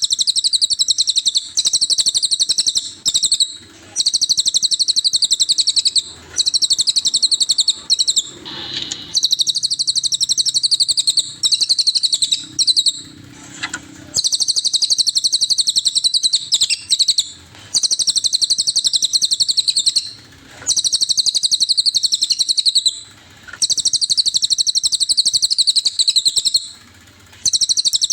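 Cililin bird song as used for a masteran (songbird training recording): long runs of very rapid, high-pitched trilling, each phrase lasting about two to three seconds and broken by short pauses.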